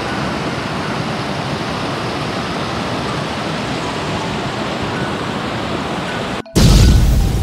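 Steady rushing noise, even and unbroken, cut off suddenly, followed by a louder deep boom near the end.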